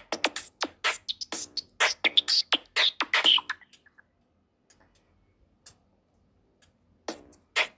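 Nokia Lumia 520 ringtone playing: a rhythmic, beatbox-like pattern of short, sharp hits for about three and a half seconds, then a few faint scattered hits, and the pattern starts again about seven seconds in.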